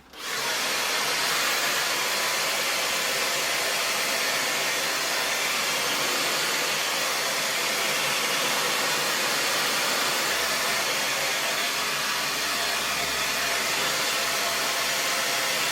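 Hair dryer switched on and blowing steadily, a constant rush of air that starts abruptly right at the beginning.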